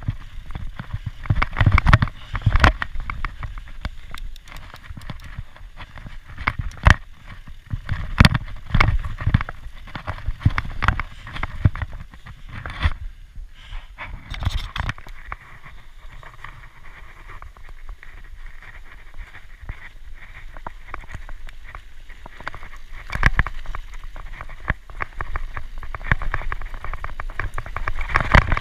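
Mountain bike ridden fast down a dirt forest trail: tyre noise over the ground with frequent sharp knocks and rattles from the bike over bumps. Briefly quieter about halfway through.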